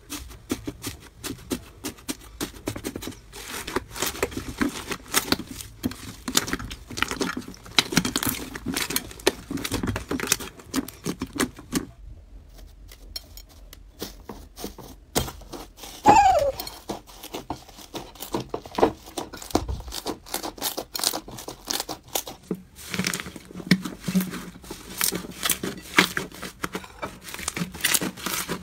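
Hands kneading and pressing slime: dense crackling and popping from crunchy foam-bead slime, and crinkling from a slime covered in a metal foil sheet, with a short lull a little before halfway. A sharp squeak falling in pitch stands out just after the lull.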